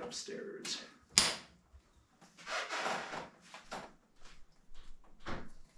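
Sharp clicks and snaps of a hand tool working on the wiring in an electrical panel, the loudest about a second in, with a longer rasping scrape a little past two seconds in.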